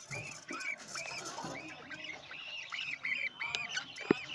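Budgerigars in a cage chirping over and over in short arched calls, about two or three a second, with one sharp click near the end.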